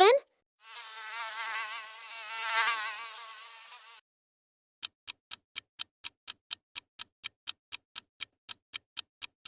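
Mosquito whine, a high wavering buzz lasting about three seconds. About a second after it stops, a clock-like ticking starts at about four ticks a second.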